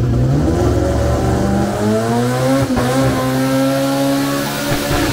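Four-cylinder 4G63 drag-car engine revving up on the starting line: its pitch climbs over the first two to three seconds, then holds at a steady high rpm, ready for launch.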